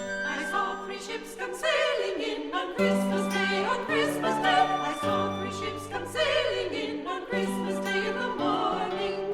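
Christmas carol music: a choir singing with vibrato over held low accompanying notes.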